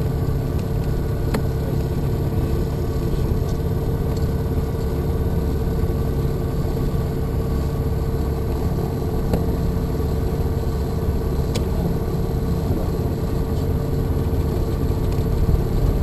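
Light aircraft's piston engine and propeller running steadily at low power while taxiing, heard inside the small cockpit as an even drone with a held hum. A few faint clicks.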